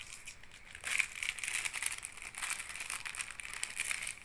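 Clear plastic banknote sleeves crinkling and crackling as hands handle old paper banknotes in them, busier from about a second in.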